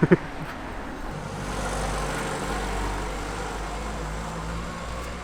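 Low rumble of a passing motor vehicle that swells from about a second in and fades away toward the end.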